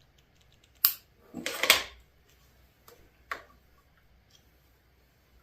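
Hand tools clinking and clattering in a few short hard knocks: one sharp click, then a brief clatter, then a couple of fainter clicks, as a screwdriver is picked up and set to the Phillips screw on the clutch lever clamp.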